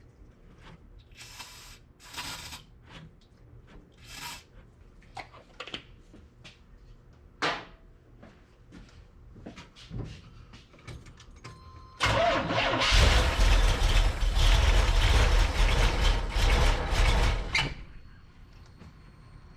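Light clicks and knocks for the first twelve seconds, then the carbureted Corvette engine cranks on the starter for about six seconds without catching and stops abruptly. The failed start is typical of the fuel problem at the carburetor that the owner suspects.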